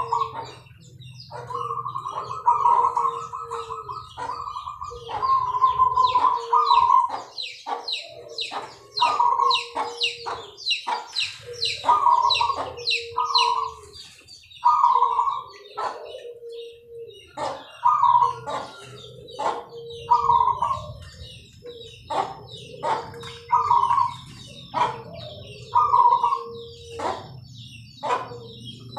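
Caged zebra doves (perkutut) cooing in repeated phrases, a low note then a higher rolling coo, about every two to three seconds. Quick high chirps of small birds run throughout, and a thin steady high tone joins in the second half.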